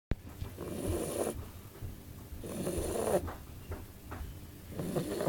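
Sleeping bulldog snoring: three rasping snores about two seconds apart, the third still going at the end.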